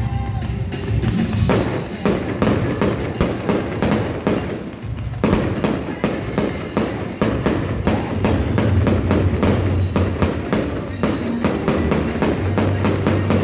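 Fireworks going off in a rapid, unbroken barrage of bangs and crackles, with music playing underneath.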